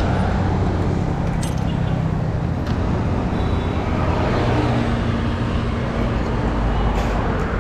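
Steady motor-vehicle noise: an engine running evenly, with a few light clicks over it.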